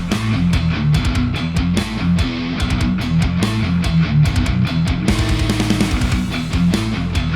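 Background music: heavy, guitar-driven rock with a steady drum beat.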